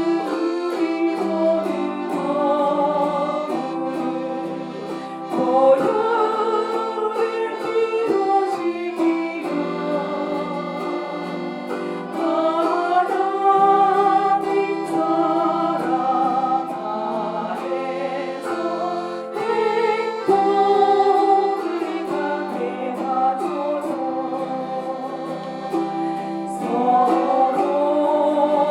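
Chromaharps and accordion playing a Korean gospel hymn, with a group of voices singing along in held notes over many quick plucked strums.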